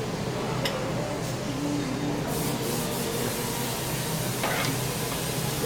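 Steady hissing workshop background noise, with a light click just after the start and a short tap about four and a half seconds in as parts and tools are handled on the bench.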